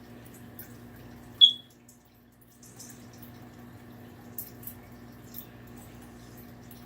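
Faint rustling and handling of a cloth snake bag and its string while a tight knot is worked loose, over a steady low hum. About a second and a half in comes one short, sharp, high-pitched chirp, the loudest sound here, and a few small ticks follow later.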